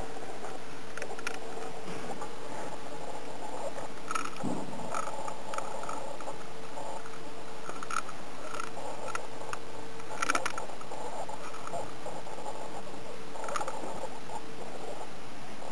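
A Scottish terrier scrabbling and scratching at the floor and rug in short spells, with scattered light claw clicks, over a faint steady hum.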